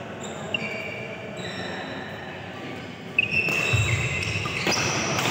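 Badminton shoes squeaking briefly on the court mat several times. About three seconds in, sharp racket hits on the shuttlecock start a rally, and the court sounds grow louder.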